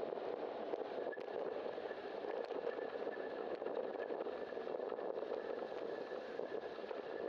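Steady road noise of a bicycle riding on a wet street, with cars running in slow traffic alongside. A faint high steady whine comes in about a second in.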